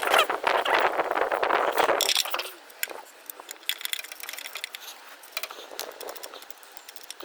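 Hand work on small metal car parts: a scraping, rustling noise for about two seconds, then scattered light metallic clicks and clinks as a starter-motor bracket is offered up and fitted.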